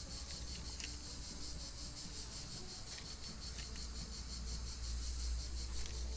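A steady, high insect chorus, trilling with a fast, even pulse. A low rumble sits underneath and grows louder in the second half, with a few faint clicks.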